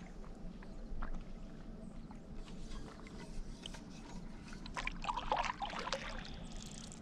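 Stand-up paddleboard paddle strokes through calm lake water: the blade dipping, pulling and lifting out with splashes and drips, the busiest splashing about five seconds in.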